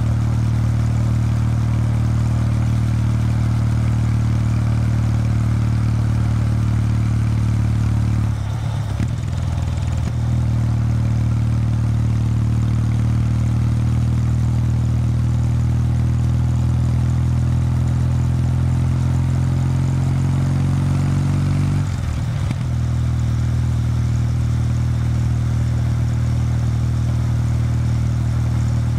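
Kawasaki W800 Street's air-cooled parallel-twin engine running through its stock exhaust while riding along. The engine note breaks briefly about eight seconds in and again near twenty-two seconds, and rises slowly in pitch between the two breaks.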